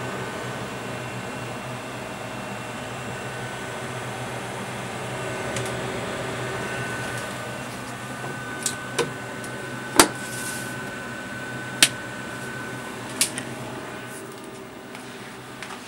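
A small electric motor running with a steady hum and a thin high whine. The whine fades out about thirteen seconds in. A few sharp clicks come in the second half, the loudest about ten seconds in.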